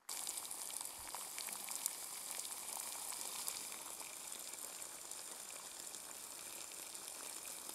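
Water boiling hard in a metal pot heated by a homemade aluminium-can alcohol stove: a dense steady bubbling with many small crackles, starting abruptly.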